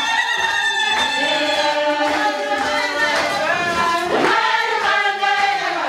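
A group of voices singing a Marakwet traditional dance song together.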